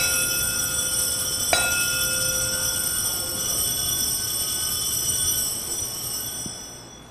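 Altar bell rung at the elevation of the consecrated host, its high metallic tones ringing on. It is struck again about a second and a half in, and the ringing dies away near the end.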